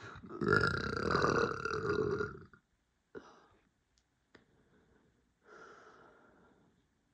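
A person's long, loud burp lasting about two and a half seconds, brought up from a bloated stomach. A short fainter sound follows, and a softer, quieter sound comes near the end.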